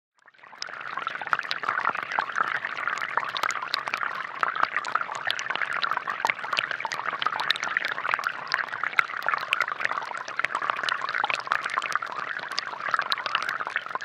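Thin water jets from a homemade plastic-bottle fountain falling into a shallow basin of water and stones: a steady splashing trickle full of small droplet splashes, fading in just at the start.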